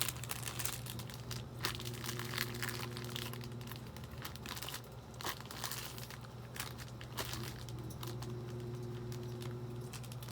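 Plastic candy-kit packaging crinkling and crackling as it is handled and opened, in scattered bursts.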